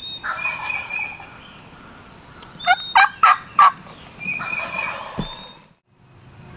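Wild turkey gobblers gobbling three times, about two seconds apart, the middle gobble the loudest.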